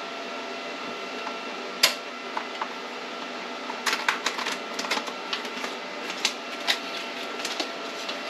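Crinkling and crackling of a thick Mylar bag being handled and lifted out of a chamber vacuum sealer after sealing, a quick run of sharp crackles from about four seconds in. A single sharp click comes a little under two seconds in, over a steady background hum.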